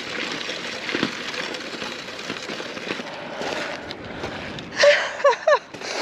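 Mountain bike rolling over a sandy, stony track: a steady rushing noise from the tyres with small ticks and rattles. Near the end comes a short run of brief vocal sounds that fall in pitch.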